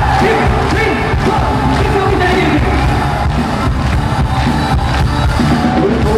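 A live pop song on stage: a singer's voice over loud, steady band music with a regular beat.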